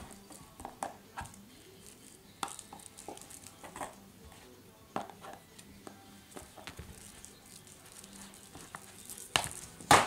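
Eurasier puppy knocking toys about on a rug and wooden floor: irregular light taps and clatters, with a louder clatter near the end.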